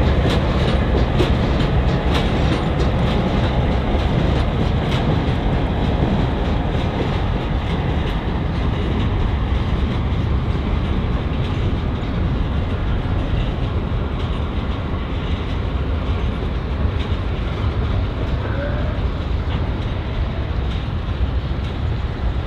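A freight train rolls past: Norfolk Southern GP38-2 diesel locomotive moving off with a caboose and covered hopper cars in tow. Steady rumble of the cars, with wheels clicking over rail joints, the clicks thickest in the first few seconds.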